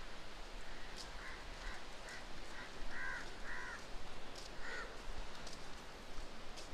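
Birds calling outdoors: a run of about seven short calls over a few seconds, the loudest two a little after the middle, over steady background noise.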